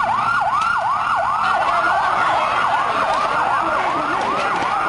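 A siren in a fast yelp, sweeping down and back up about three times a second. From about two seconds in, a second siren overlaps it, slightly out of step.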